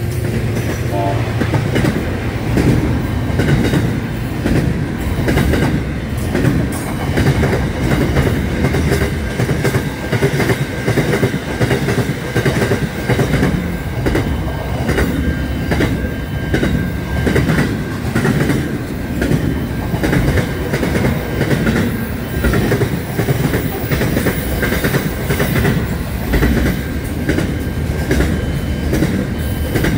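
Wagons and containers of an Aurizon freight train rolling past at speed: a steady loud rumble with a rapid clickety-clack of wheels over the rail joints.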